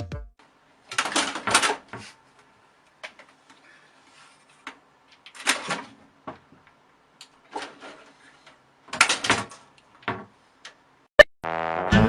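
Scattered knocks and short clattering bursts a few seconds apart, with a single sharp click near the end.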